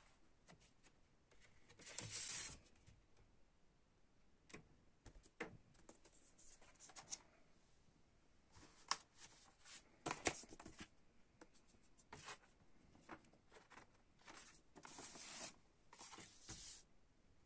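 Quiet handling of a gatefold LP jacket and its black paper inner sleeves: paper and card rustling and sliding, with scattered soft taps. Louder rustles come about two seconds in, around ten seconds, and near the end.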